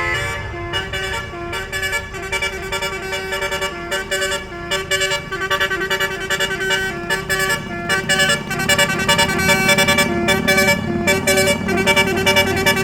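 Bus telolet horn, a multi-note air horn, playing a quick melody of short stepped notes over and over, with a low rumble underneath that grows louder in the second half.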